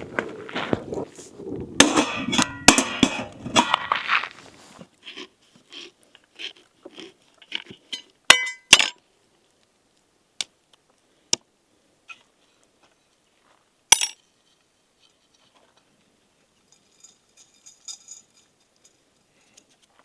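Cooking utensils and dishes clattering and clinking: busy handling for the first few seconds, then a handful of single sharp clinks spread out, with stretches of near silence between.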